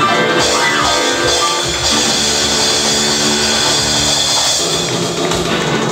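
Live rock band playing the closing instrumental bars of a song, with drums and guitar.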